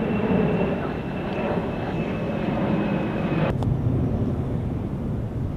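Steady outdoor rumble of distant engines, with a thin high whine that stops at a sharp click about three and a half seconds in; the lower rumble goes on after it.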